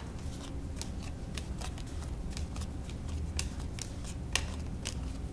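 Playing cards from the Schrödinger's Cats game being dealt one at a time off a deck onto a cloth-covered table, giving light, irregular snaps a few times a second.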